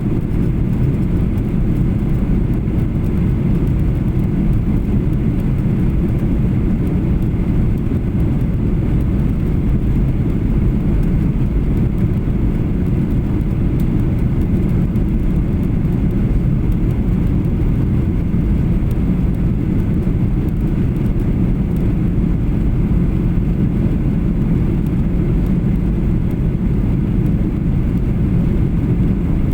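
Boeing 737-800 passenger cabin noise: a steady low rumble from the engines and the air rushing past, with no change in pitch or level.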